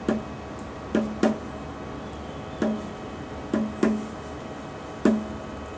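A drum struck seven times in a slow, uneven beat, single strokes alternating with pairs, each beat a sharp hit with a short low ring.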